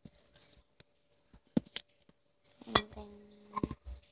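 Scattered knocks and clinks of things handled on a tabletop while a lump of Play-Doh is worked by hand. The sharpest click comes a little under three seconds in and is followed by a brief steady hum.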